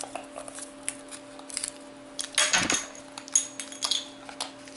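Light clicks, taps and rustles of hands handling a Kinder Surprise's plastic toy capsule and its folded paper insert, with a louder clatter and crinkle about two and a half seconds in. A steady low hum runs underneath.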